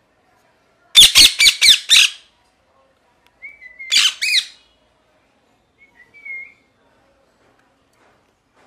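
Pet ringneck parakeet screeching: a quick run of five loud, harsh calls about a second in, then a short whistled note and two more screeches around four seconds, and a brief soft whistle near six seconds.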